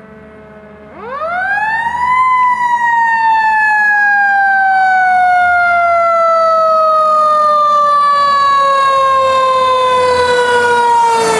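Fire engine siren: a faint falling wail at first, then about a second in it winds up sharply to a loud high wail and slowly winds down in pitch over the following nine seconds.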